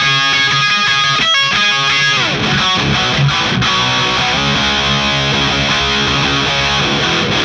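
Electric guitar played through a DIY HM-2-style 'Swedish Chainsaw' distortion pedal: heavily distorted riffing, with a pitch slide about two seconds in.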